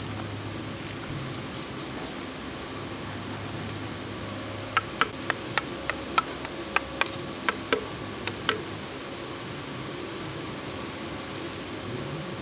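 Hand tools working the bolts on a StuG III transmission: a run of about a dozen sharp clicks, a few a second, starting about five seconds in and stopping about three and a half seconds later, over a steady low hum.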